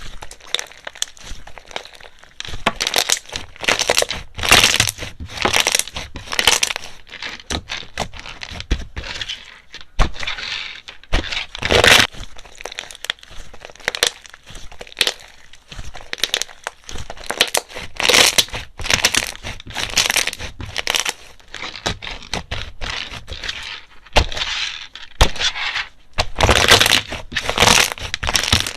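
Slime being squeezed, pressed and stretched by hand, crackling and popping in quick irregular clusters of sharp clicks as trapped air escapes.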